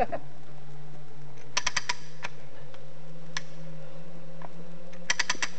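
Ratchet of a Trewhella monkey grubber hand winch clicking as its lever is pumped: quick runs of four or five sharp clicks, one a little under two seconds in and another near the end, with single clicks between.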